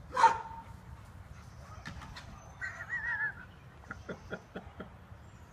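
Birds chirping in a backyard, with a loud sharp call right at the start. About four seconds in, a quick run of taps and scrapes comes as a small dog's claws grip a wooden fence it is climbing.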